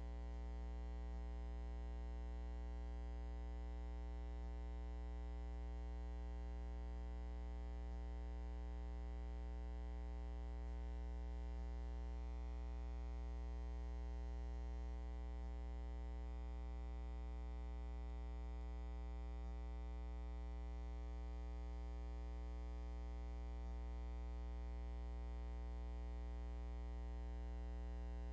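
Steady, unchanging electrical hum with a buzz of its overtones, and no other sound.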